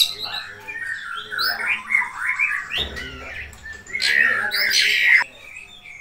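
Lovebirds chattering: a fast run of shrill chirps and squawks, growing into a louder, harsher stretch about four seconds in that cuts off abruptly just after five seconds.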